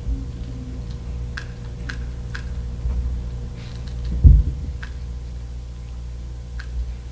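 A hand lighter clicked several times, sharp single clicks about half a second apart and then more spread out, as it is tried on a candle that won't light. A dull thump about four seconds in, over a steady low hum.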